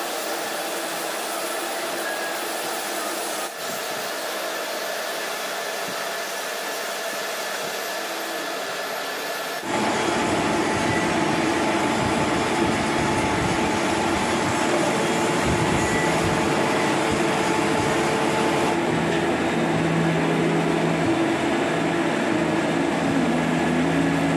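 Steady whirring machine noise of a lathe running in a machine shop. About ten seconds in it changes abruptly to a louder, deeper steady hum.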